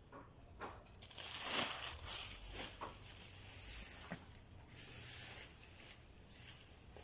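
Broom bristles sweeping across paving in irregular swishing strokes with small scrapes, busiest between about one and five seconds in.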